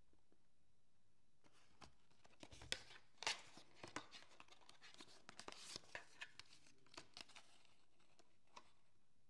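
Paperboard candle box being handled: scattered sharp clicks and taps on the card as its top flap is lifted open, the loudest two about three seconds in, then soft paper rustling as a folded leaflet is drawn out and opened.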